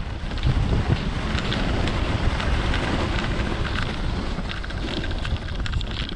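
Wind buffeting the microphone as a steady low rumble and hiss, with faint crunching of footsteps on snow-covered ice.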